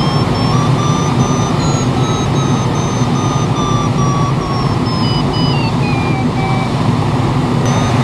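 Steady wind noise in a glider's cockpit in flight, with the electronic variometer's tone rising in pitch over the first couple of seconds and falling from about five seconds in, as the glider meets a thermal and the lift then fades.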